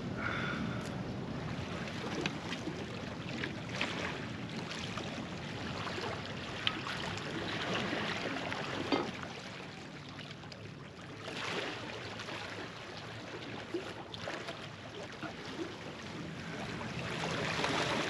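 Small lake waves washing against a rocky shore, with wind on the microphone and a few small clicks.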